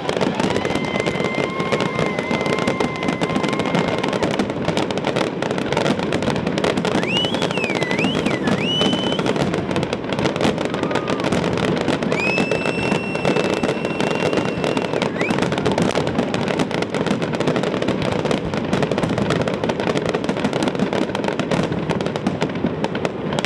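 Fireworks finale: a dense, continuous barrage of shell bursts and crackle. Several high whistles sound over it, one held early on, a few sliding up and down about a third of the way through, and another held about halfway.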